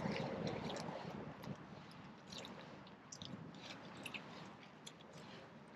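Footsteps of snow boots on a wet, muddy woodland path: soft treads with small crackles of twigs and leaves underfoot, faint and getting quieter over the first few seconds.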